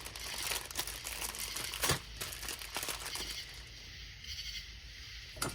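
Crinkling and rustling of something being handled and crumpled by hand, with a few light clicks or knocks.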